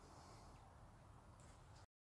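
Near silence: faint room hiss that cuts off to dead silence near the end.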